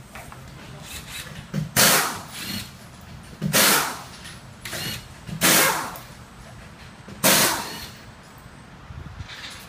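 Air-powered shop tool run in short bursts: four loud bursts of about half a second each, roughly two seconds apart, with weaker bursts between them.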